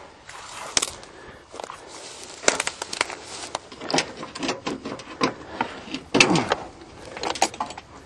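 Dry grass and burrs rustling and crackling as they are cleared away from a van's battery under the hood, with irregular small clicks and knocks.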